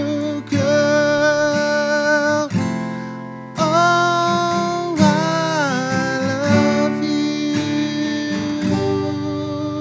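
Acoustic guitar strummed under a man's long, wordless sung notes that waver in pitch: the closing bars of a folk song.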